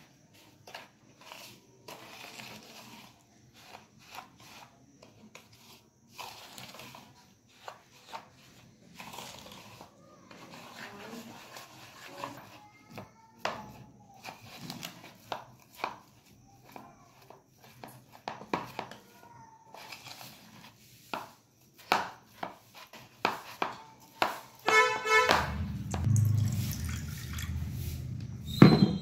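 Steel spoon stirring and mashing semolina and curd in a bowl, making irregular scrapes and taps against the bowl. Near the end a louder low rumble comes in.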